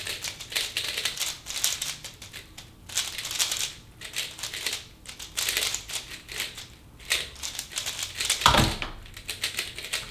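Speedcubes being turned fast during a race solve: rapid plastic clicking and clacking in flurries with short pauses between them. There is a louder thump about eight and a half seconds in.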